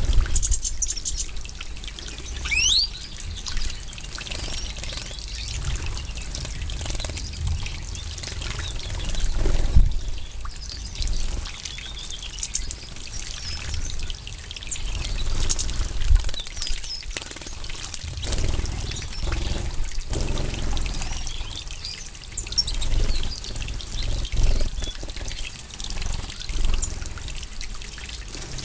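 European goldfinches bathing in a shallow ground pool: continual water splashing and trickling as the birds flutter in the water, with many short high chirps and calls from the flock.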